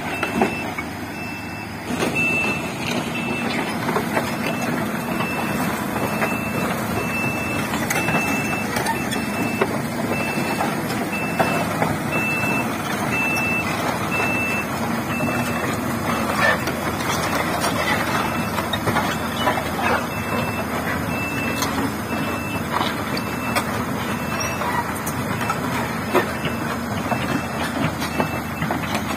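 Komatsu PC200 excavator's travel alarm beeping steadily at one pitch about twice a second, growing fainter after about halfway, over the diesel engine running and scattered clanks from the steel tracks as the machine moves.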